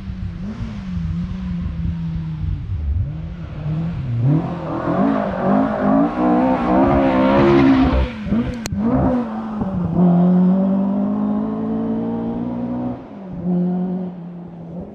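Ford Escort RS2000 Mk1 rally car's four-cylinder engine approaching hard on a gravel stage, its pitch rising and falling through gear changes, and loudest as it passes about eight seconds in, with a single sharp crack. It then pulls away with long steady rising notes, lifts briefly near the end and picks up again.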